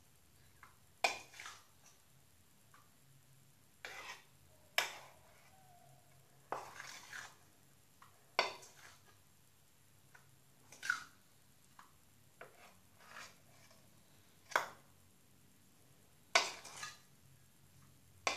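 A flour slime mixture being stirred in a container: irregular clinks and scrapes of the utensil against the container, one every second or two.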